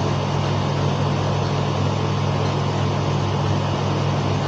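Steady low hum over an even hiss, unchanging in level throughout.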